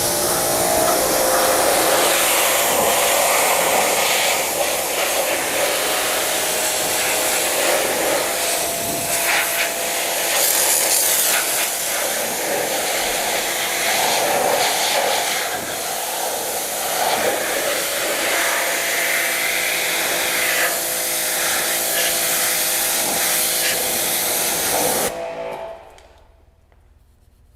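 Pressure washer spraying a jet of water onto a car's front body panels, a steady loud hiss with a hum underneath, blasting off old dirt and bonded contaminants. The spray stops suddenly near the end.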